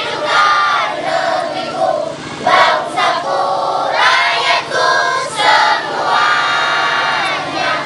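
Group of voices singing together as a choir, with children's voices among them.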